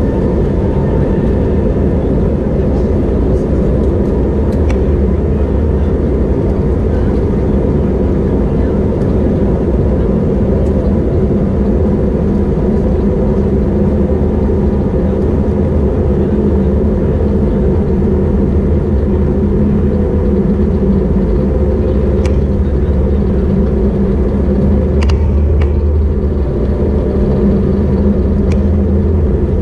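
Steady low drone of an Airbus A321neo's engines and airflow heard from a cabin window seat over the wing as the jet taxis, with a faint thin engine whine and a few light clicks. Near the end one engine tone begins to rise.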